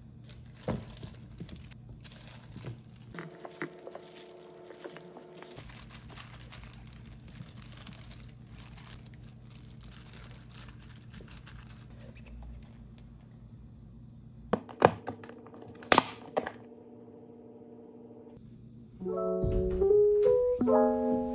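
Kitchen handling sounds while making kkakdugi (cubed radish kimchi): crinkling and light knocks, with two sharp clicks a little past the middle. Piano background music comes in near the end.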